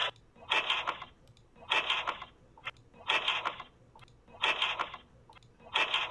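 Audio from a doorbell camera's recording: a run of short rough noises, one about every 1.3 seconds, each lasting about half a second and thin-sounding, cut off above the midrange.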